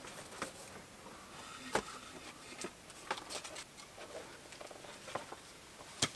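Light rustling and a few scattered sharp clicks of camping gear being handled: a cord tied to the rock wall above a bivy bag, with the bag's fabric moving.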